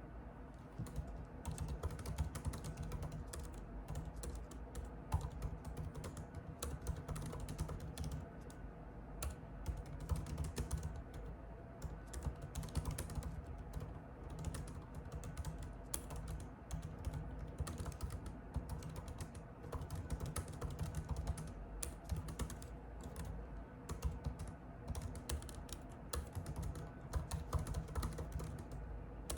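Typing on a computer keyboard: quick, irregular runs of key clicks broken by short pauses, starting about a second in.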